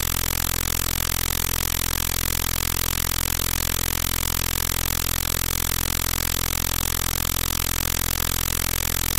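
A steady low hum holding several fixed pitches, with a fast, even pulse and hiss above it.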